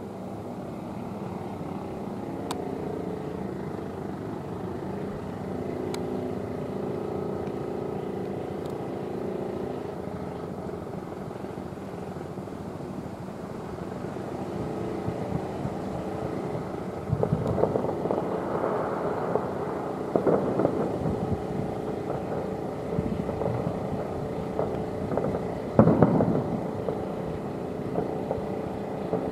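Aerial fireworks shells bursting in a run of dull booms and crackles in the second half, the loudest near the end, over a steady background rumble with a faint drone.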